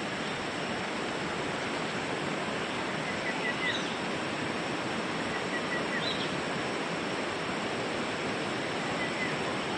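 Stream water running over rocks, a steady even rushing hiss, with a few faint high chirps about a third of the way in, around the middle and near the end.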